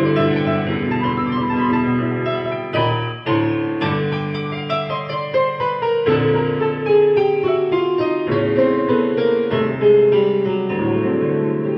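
Digital piano played with both hands in a flowing improvisation of sustained chords under a running melody, with a short break about three seconds in and a melody stepping downward in the middle.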